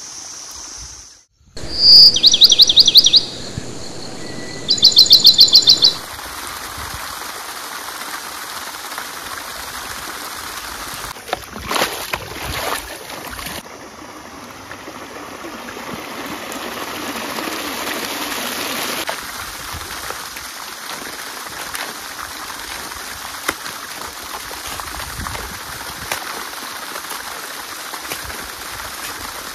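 A bird sings two loud, rapid high trills in the first few seconds. After that comes a steady wash of trickling water, with a few sharp knocks about halfway through.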